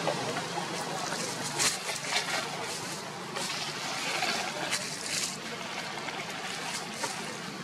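Steady outdoor background noise, with a handful of short, crisp rustles between about one and a half and five seconds in.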